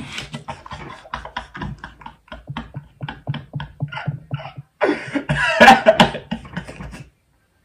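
A man's stifled laughter behind his hand: rapid breathy snorts about four a second, breaking into a louder, fuller laugh about five seconds in, then stopping shortly before the end.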